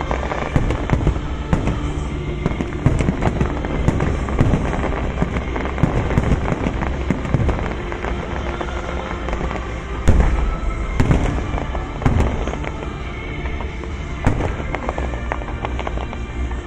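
Fireworks display going off: a continuous run of bangs and crackling, with heavier bursts about ten, twelve and fourteen seconds in, over music playing in the background.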